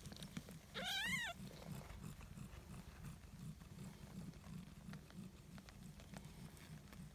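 A three-day-old British Shorthair kitten gives one short mew, rising then falling, about a second in, while nursing among its littermates. A low, steady rumble runs underneath.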